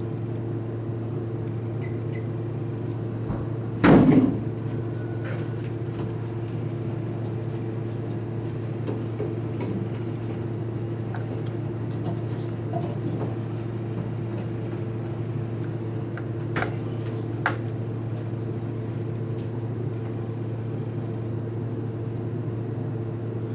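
A steady low mechanical hum, with one loud knock about four seconds in and two light clicks later as small Lego pieces are handled on a tabletop.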